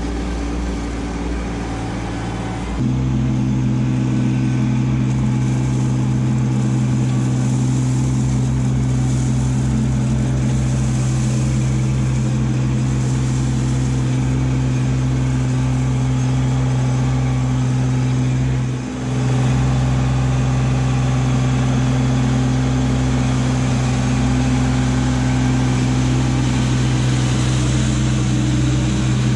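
Kubota LX2610 compact tractor's three-cylinder diesel engine running steadily while working the front loader in gravel. The engine note steps up louder about three seconds in, as if throttled up, and dips briefly once near the middle.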